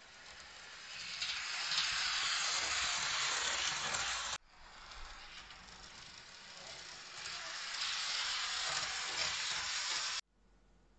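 Model railway coach's metal wheels rolling along the rails across the bridge track, a steady rushing sound that builds up, cuts off sharply about four seconds in, builds up again and cuts off sharply near the end.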